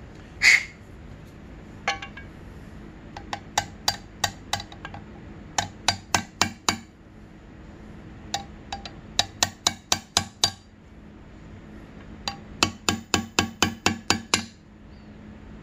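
Hammer tapping a deep socket to drive a new water pump seal into an aluminium engine side cover: runs of quick, light metallic taps with a short ring, about four runs in all. A single louder clatter comes about half a second in.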